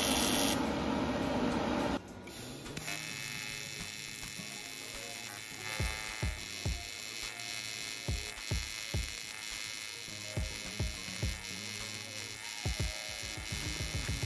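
TIG welding arc on square-wave AC with pulse: a steady electric buzz with low pulsing thumps about twice a second. Before it, a loud hiss runs for the first two seconds and cuts off abruptly.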